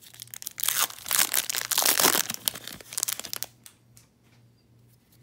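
Wrapper of a Topps baseball card pack being torn open and crinkled, the crackling stopping about three and a half seconds in.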